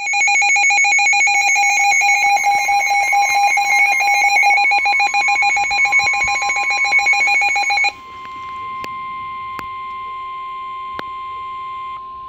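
Midland NOAA weather alert radio going off for a severe thunderstorm warning. A loud, rapidly pulsing electronic alarm sounds for about eight seconds and then cuts off, leaving a steady single-pitch alert tone from the radio's speaker, the weather service's warning tone, with a few clicks.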